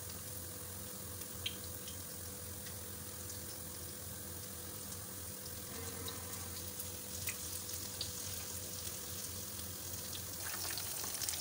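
Battered fish pieces sizzling in hot oil in a frying pan: a steady hiss with fine crackles, growing louder and denser near the end as more pieces go in. A few light clicks sound over it.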